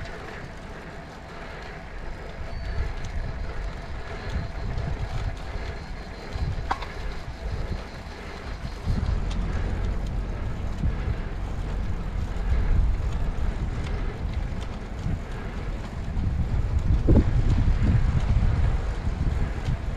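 Wind buffeting the microphone of a camera riding along on a road bike, over the hiss of tyres on the road. The gusty rumble grows heavier about halfway through.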